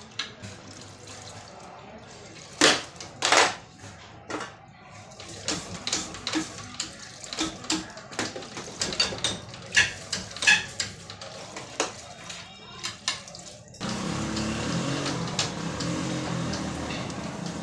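Metal parts and hand tools clinking and knocking in irregular, sharp strikes. About fourteen seconds in, this gives way abruptly to a louder, steady rushing noise.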